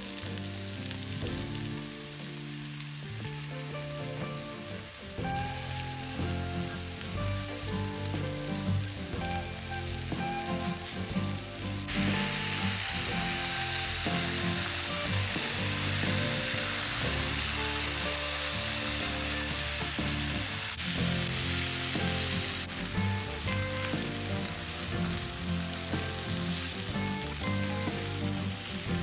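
Oil sizzling in frying pans: oyster mushrooms and onion frying, then chicken breasts with rosemary, where the sizzle grows louder and brighter for about ten seconds in the middle as butter goes into the pan. Soft background music runs underneath.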